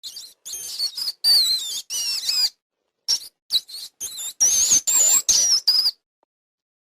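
A small animal's high-pitched squeaking calls, in a quick run of short bursts whose pitch wavers up and down, stopping about a second before the end.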